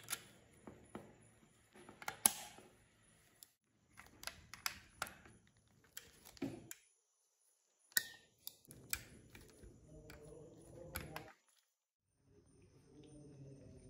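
Faint clicks and taps of plastic parts of an AMG G500 model car being handled and pressed into place by gloved hands, scattered at irregular intervals with short silent gaps.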